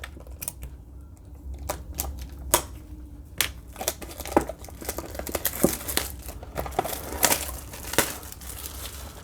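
A Panini Contenders trading card box being worked open by hand: wrapping crinkling and cardboard tearing, with many irregular sharp crackles that get busier about halfway through.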